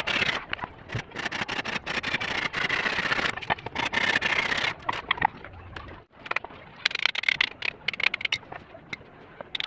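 Handsaw cutting wood, with a long run of quick rasping strokes, a pause about five seconds in, then a shorter run of strokes near the end.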